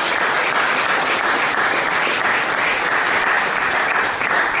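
Audience applauding at the end of a talk, a steady round of clapping that starts to die down just after four seconds in.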